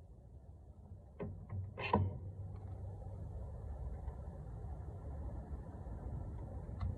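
A few sharp metal clinks from hand work on brake parts, the last one loudest, followed by a steady low rumble.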